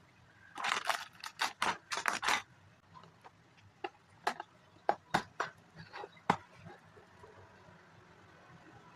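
Plastic Lego pieces rattling and scraping as they are handled, then about six sharp clicks of bricks knocking or snapping together.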